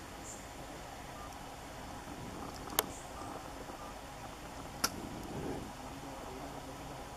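Steady background noise with two sharp clicks about two seconds apart, the first a little before the middle.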